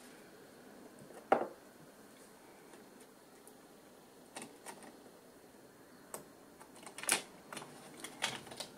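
Scattered small clicks and taps of hands working the cooling fan and its plug loose inside an opened HP ProBook 4540s laptop. A sharper click comes about a second and a half in and another about seven seconds in.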